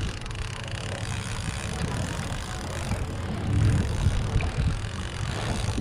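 Wind buffeting the microphone, a low rumbling noise that gusts up and down, louder around the middle.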